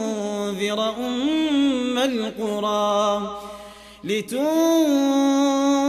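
A man's voice reciting the Quran in the melodic, drawn-out tajweed style, with ornamented phrases that wind up and down in pitch. About three and a half seconds in, the voice fades into a short breath pause, then comes back on a long held note.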